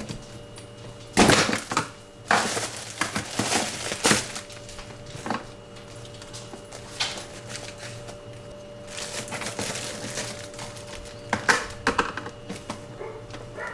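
Frozen food being taken out of a freezer drawer: hard packages knock and clatter and plastic bags crinkle, in several bursts, over a steady hum.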